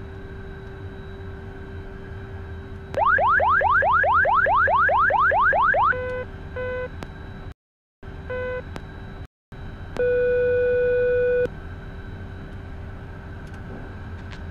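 Beechcraft Premier I cockpit aural warnings sounding while the jet sits parked, as in a preflight warning test. First comes a run of rapid rising whoops, about five a second for three seconds. Then come a few short beeps and the landing-gear warning horn, a steady tone held for about a second and a half.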